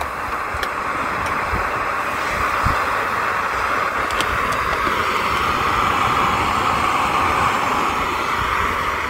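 Portable gas camping stove burner hissing steadily under a pot, with a couple of light metal clinks from a spoon in the metal pot.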